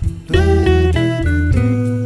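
Background instrumental music of held, sustained notes; it dips briefly at the start and comes back about a third of a second in.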